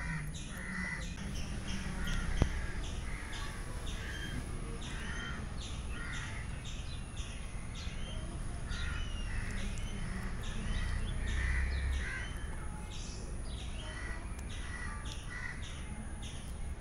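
Crows cawing over and over, many short calls overlapping one another, with a single sharp knock about two and a half seconds in.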